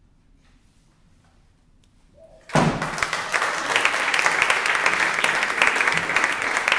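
Near silence for about two and a half seconds, then an audience suddenly breaks into applause that carries on steadily.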